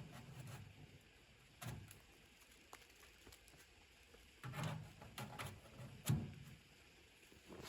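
A few scattered soft thumps and knocks, with a sharper knock about six seconds in, over a faint background hiss.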